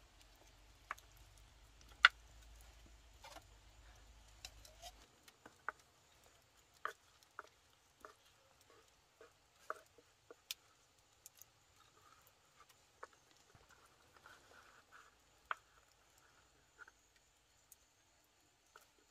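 Wood fire crackling faintly, with irregular small pops and ticks and one sharper pop about two seconds in.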